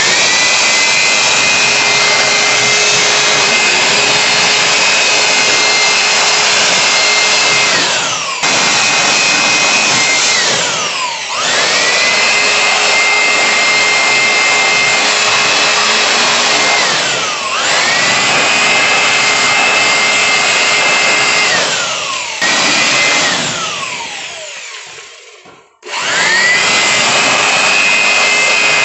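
Cheston 600-watt electric air blower running at full speed: a loud rush of air under a high motor whine. About five times the whine falls away as the motor slows and then rises again as it speeds back up. The last slow-down, near the end, is longer, about two seconds, before the motor starts up again.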